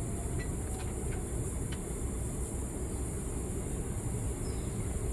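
Steady low background rumble with a few faint clicks in the first couple of seconds.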